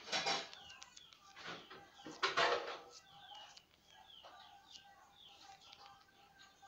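Background bird calls, probably poultry: a run of short falling chirps, with a few louder, noisier calls in the first three seconds.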